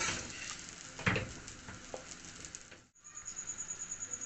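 Metal spoon scraping and knocking against a steel kadai as a fried, coarsely ground poppy-seed and fennel mixture is tipped into hot ghee and gram flour, with a light sizzle. After an abrupt break near three seconds, a cricket chirps in a fast, steady, high pulse.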